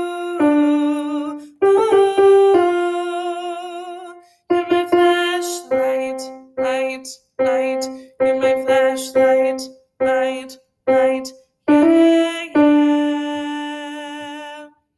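A piano playing a line of single notes, some held and some short and repeated, with a woman's voice singing along wordlessly with vibrato on the held notes.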